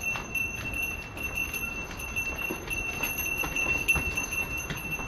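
Livestock bells jingling and clanking irregularly as animals are driven along, over a steady high-pitched tone.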